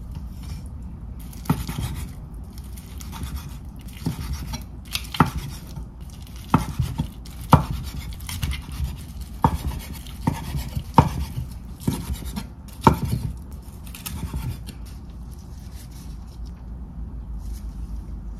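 A knife knocking on a cutting board, about a dozen sharp irregular strokes roughly a second apart, over a steady low hum.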